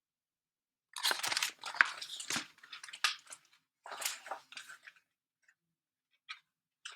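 Paper rustling and crackling in irregular strokes for a few seconds, from a picture book's page being handled and turned, with two faint clicks near the end.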